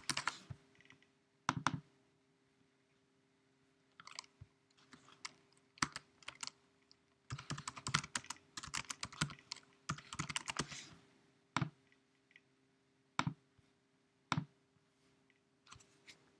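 Typing on a computer keyboard in short runs, with the longest run about seven to eleven seconds in, then a few single clicks a second or two apart. A faint steady hum underneath.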